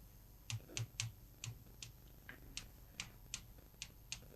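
Faint, irregular clicks of a stylus tapping on an interactive touchscreen board while handwriting is written, two or three a second.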